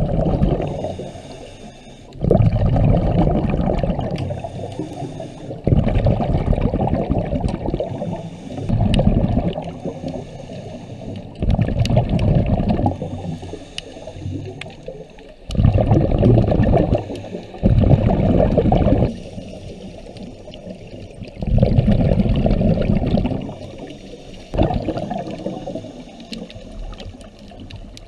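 Scuba diver's regulator exhaust: bursts of exhaled bubbles about every three seconds, one for each breath out, with quieter gaps while the diver breathes in. Heard underwater, so the bubbling is muffled.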